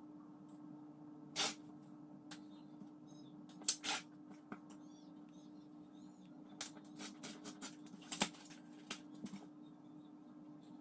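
Paper and a plastic ruler being handled on a wooden table: two short papery swishes, then a run of light clicks and knocks as the ruler is set down and slid about. A steady low hum runs underneath.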